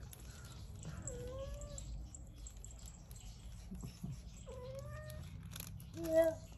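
Indoor house cat meowing three times, a drawn-out call about a second in, another a little past the middle, and a short, loudest one near the end.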